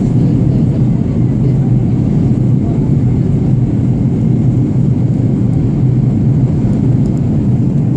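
Airplane in flight: a steady, loud, low drone of engines and rushing air that does not change.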